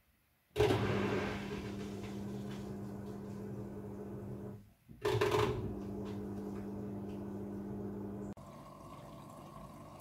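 Midea front-loading washing machine's drain pump starts about half a second in, humming steadily as it pumps rinse water out of the drum with a gurgling rush. It cuts out for a moment around halfway and starts again, then stops near the end and gives way to the quieter hiss of water flowing back in for the next rinse fill.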